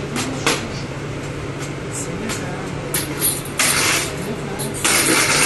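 Bakery work noise over a steady machine hum: scattered knocks and clicks, then two loud hissing bursts, the first lasting about half a second and the second starting near the end.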